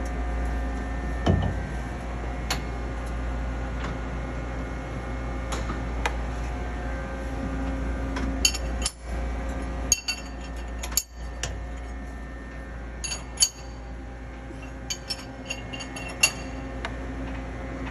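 Workpiece being clamped in a CNC lathe's chuck jaws: scattered sharp metal clinks and taps, coming in small clusters from about eight seconds in, over the lathe's steady hum.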